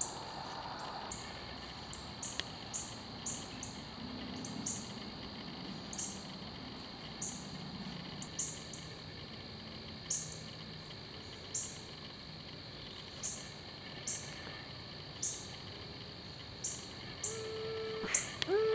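Short, high-pitched chirps repeating about once a second, from a small bird or insect, over a faint steady background. Near the end a steady hum-like tone comes in twice, each held about a second, louder than the chirps.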